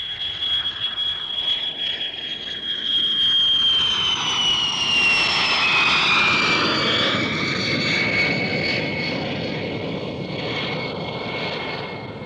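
Handley Page HP.115 slender-delta research aircraft flying low overhead with its lower, unshielded Hartmann air-driven noise generator running: a steady high whistle that drops in pitch as the aircraft passes, over the rushing noise of its jet engine, which swells and then slowly fades.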